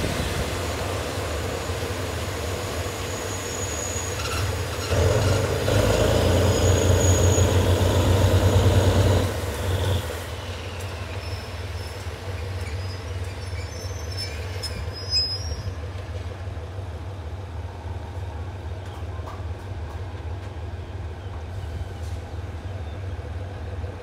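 Thai State Railway GEK-class diesel locomotive rolling slowly past while arriving at a station stop, its engine a steady low hum that is loudest from about five to nine seconds in, with a faint high wheel or brake squeal over it. After that the passenger coaches roll by more quietly.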